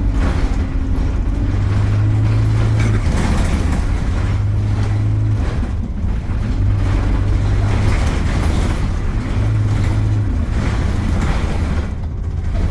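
Engine and drivetrain of an Alexander Dennis Enviro200 single-deck bus heard from on board, its low hum swelling and easing every second or two, with short rising whines as it pulls along and changes gear.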